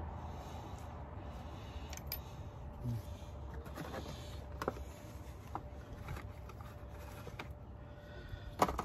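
Scattered small clicks and taps of a ratchet, socket extension and spark plug parts being handled in a car's engine bay, over a low steady hum, with a sharper knock near the end.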